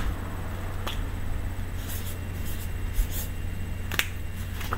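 Red felt-tip marker drawing on a paper lyric sheet: a few sharp taps and clicks, the strongest at the start and about four seconds in, with faint scratchy strokes between them, over a low steady hum.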